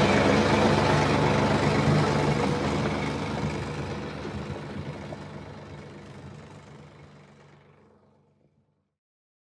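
A heavy engine running steadily, which fades out gradually from about two seconds in until it is gone shortly before the end.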